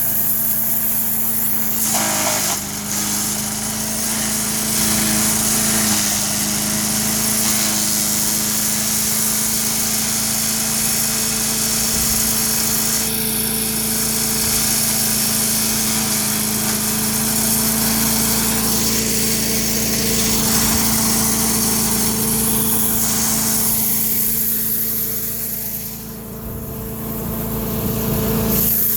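Craftsman 4 HP wood chipper/shredder's small single-cylinder engine running steadily at speed under its new replacement carburettor, the level dipping briefly near the end.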